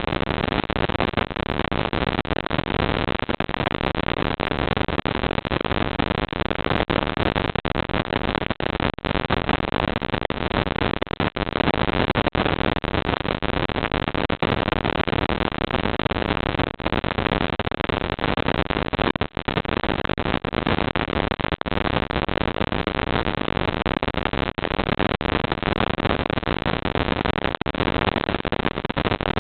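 Steady loud hiss from a security camera's built-in microphone, with a few very brief dropouts.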